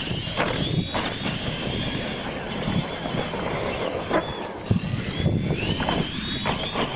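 Radio-controlled monster trucks racing on dirt. A thin high electric-motor and gear whine rises and falls with the throttle over a rumble of tyres and chassis, and a few sharp knocks come as the trucks bounce over ramps and ruts, the loudest about two-thirds of the way through.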